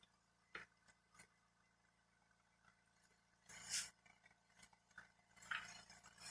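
Mostly near silence, broken by a few faint knocks and two brief scrapes, like a steel jack stand and tools being handled and shifted.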